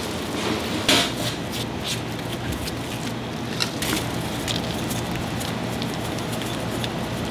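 Snack-bar kitchen background noise: a steady crackling hiss over a low hum, with a few sharp taps and clicks as gloved hands handle a styrofoam food tray on a steel counter, the loudest about a second in.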